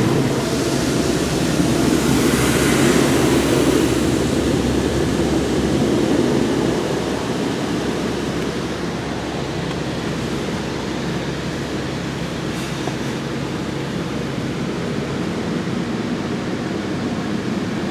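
Belanger Kondor automatic car wash spraying high-pressure water onto the car: a steady hiss and rumble of water jets, strongest in the first few seconds and easing slowly after.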